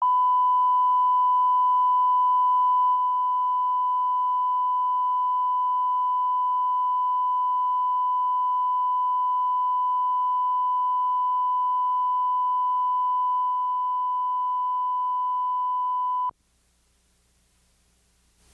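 Steady single-pitch test tone, the line-up tone played with colour bars, that cuts off suddenly about sixteen seconds in, leaving near silence.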